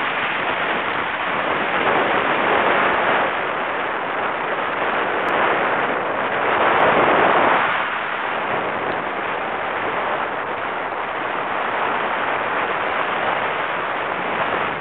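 Wind rushing over the microphone of a camera on a motorcycle at highway speed. It is an even rush that swells louder about two seconds in and again around seven seconds in.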